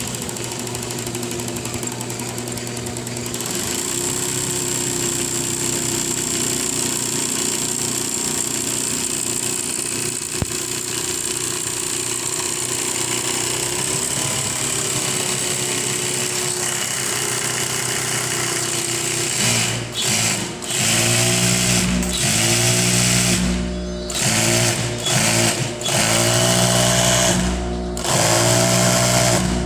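Juki 5550 industrial single-needle lockstitch sewing machine. Its motor hums steadily at first; from about two-thirds of the way in, the machine runs in repeated short bursts, each rising in pitch as it speeds up and then stopping abruptly.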